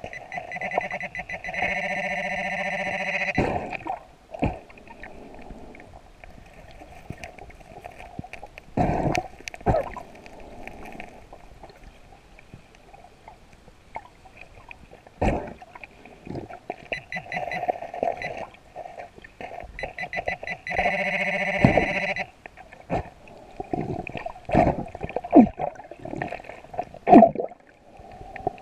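Underwater metal-detecting pinpointer giving its buzzing alert tone over a target in the sand: two long buzzes, about two seconds near the start and a shorter one past the middle, with broken bursts of the tone between. Irregular knocks and scrapes sound throughout, the loudest near the end.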